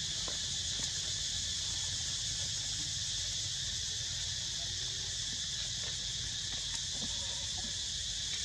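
Steady chorus of insects, an even high-pitched drone that never breaks, over a low steady rumble.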